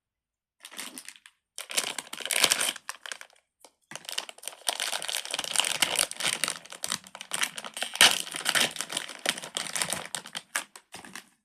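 Plastic crinkling and crumpling as fidget toys and their wrapping are handled, in short bursts at first and then almost continuously, with one louder crackle about eight seconds in.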